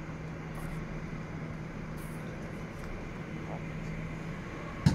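Airport ramp and terminal noise heard through the terminal glass: a steady drone with a steady low hum, as a jet taxis in. A single sharp knock just before the end.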